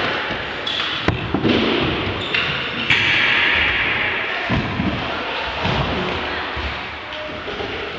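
Wheels rolling across wooden skatepark ramps with several sharp thuds and knocks, echoing in a large hall.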